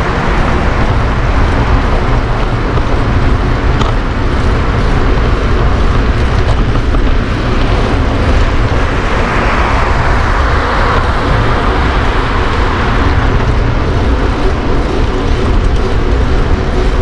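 Steady street and traffic noise heard from a moving bicycle on a busy city street, heavy in the low end, swelling louder about ten seconds in as something passes.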